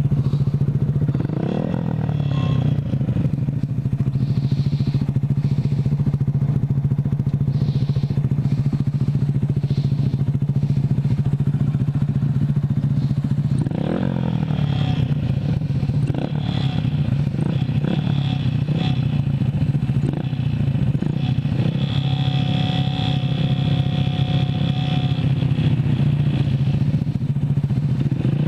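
Two Honda Grom 125 cc single-cylinder motorcycle engines idling side by side. One engine is blipped briefly, about a second and a half in, again around fourteen seconds in, and once more at the end.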